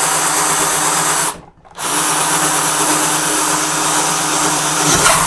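Electric drill with a large bit boring a hole, running steadily, stopping for a moment about a second and a half in, then running again; near the end the bit catches and drives itself into the work.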